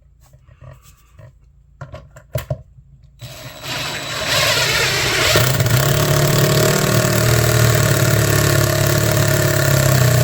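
A few knocks of handling, then a power tool's motor starts about three seconds in, comes up to speed and runs steadily with a hum and a hiss, cutting off at the end.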